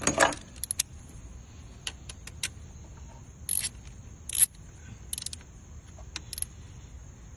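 Scattered sharp metallic clicks and clinks, with a couple of short rasping bursts, from hand tools and sockets being handled and used while fasteners are done back up.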